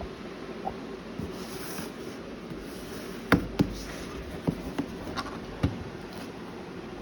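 Light clicks and knocks of hardware or its packaging being handled: a pair of sharper knocks about halfway through, then several lighter taps, over a steady background hiss.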